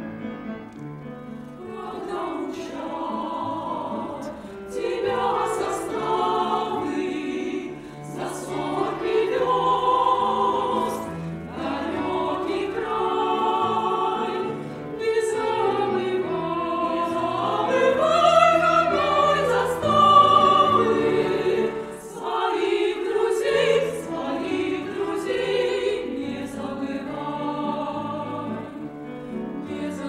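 Women's vocal ensemble singing a Russian song in several-part harmony, with piano accompaniment. The voices come in about a second and a half in, over the piano that was already playing.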